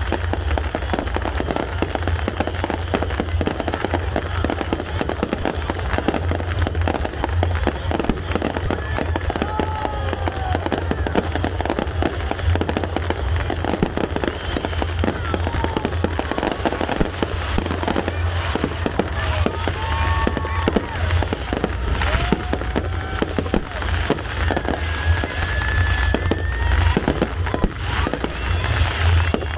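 A dense, continuous barrage of aerial firework shells bursting, with rapid bangs and crackles over deep booms.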